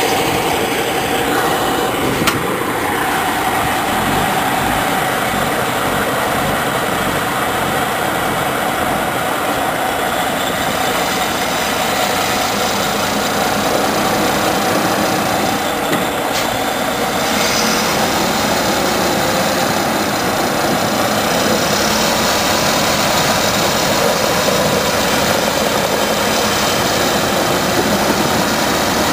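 Heavy diesel dump truck engine running steadily.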